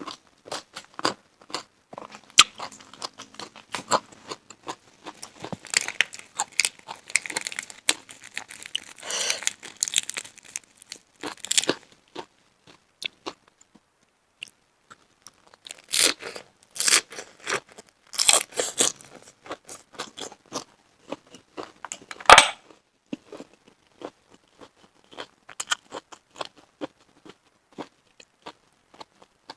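Close-miked eating of steamed shellfish: chewing and crunchy, clicking mouth sounds come in bursts with short pauses between them. A single sharp knock sounds about two-thirds of the way through.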